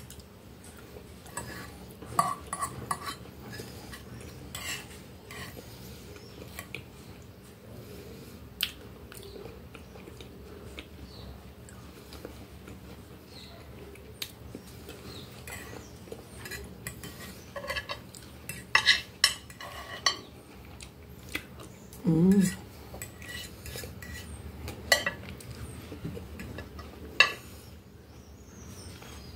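Metal fork and knife clinking and scraping against a glass plate in scattered sharp clicks, with a cluster of louder clinks about 19 seconds in, over close-up chewing.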